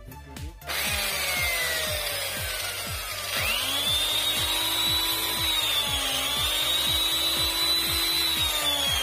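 Electric chainsaw's brushed motor running: a high whine falls away, then climbs sharply about three seconds in, holds with a brief dip, and starts to wind down near the end. The saw is run to show its fault, sparking ("flashing") at the armature.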